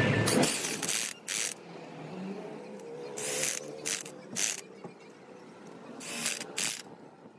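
Corded electric impact wrench hammering in several short bursts on the bolts of a truck differential carrier.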